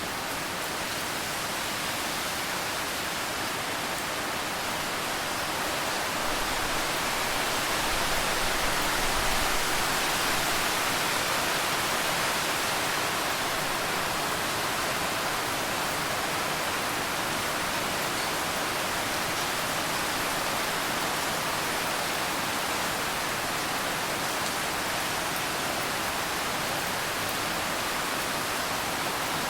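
Steady rain falling, an even hiss with no distinct drops or thunder, swelling slightly about eight seconds in.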